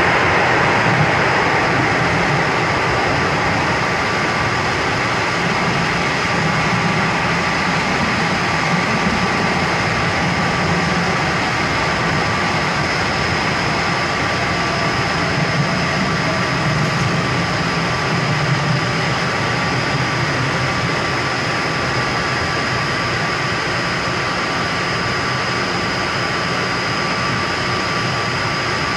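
Metro train running through a tunnel, heard from inside the car: a steady rumble of wheels on rails with a constant high whine over it. In the first moment a train on the other track rushes past.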